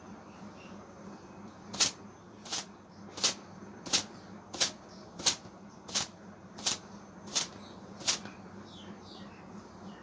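A checked cotton towel slapped against long wet hair ten times in a steady rhythm, about three sharp slaps every two seconds, as the hair is beaten dry.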